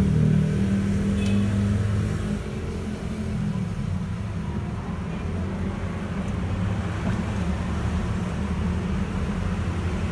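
Steady low motor hum, a little louder for the first two seconds.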